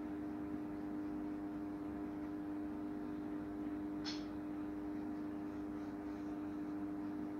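A steady low hum held at one pitch with several overtones, unchanging throughout; a brief high chirp about four seconds in.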